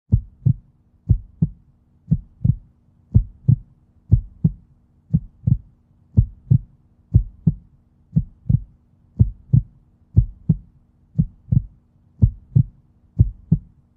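Heartbeat sound effect: low double thumps, lub-dub, about one pair a second, over a faint steady low hum.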